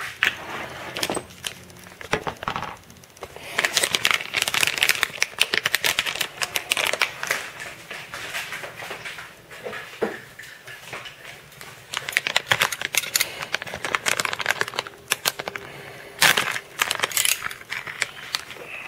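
Plastic packaging of a small hardware bag crinkling and crackling as it is worked open by hand, in irregular bursts of rustling and sharp clicks.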